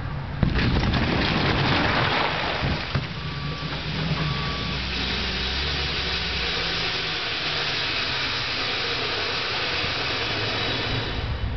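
A truck crashing through a closed sectional overhead door: a sudden crunch about half a second in, then a couple of seconds of crashing and scraping panels over the truck's engine. A steady hiss follows and stops near the end.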